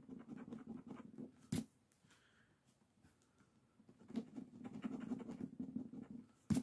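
Coin edge scratching the coating off a paper scratch-off lottery ticket in quick rasping strokes, in two spells with a quiet pause between. A sharp click about a second and a half in and another near the end.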